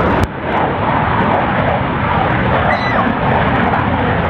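Royal Netherlands Air Force F-16 fighter jet flying a display manoeuvre, its Pratt & Whitney F100 turbofan giving a loud, steady jet noise. A sharp click and a brief dip in level come just after the start.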